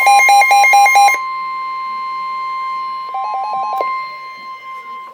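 NOAA Weather Radio warning alarm tone, a steady single-pitch tone at about 1050 Hz, cutting off just before the end. For the first second, and again briefly about three seconds in, a weather radio's rapid two-pitch electronic beeping alarm sounds over it.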